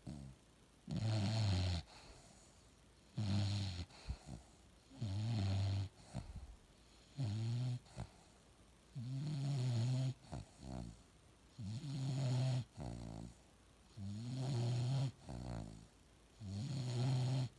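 Bulldog snoring in a steady rhythm: a low snore about every two seconds, each lasting about a second, with quieter breaths between.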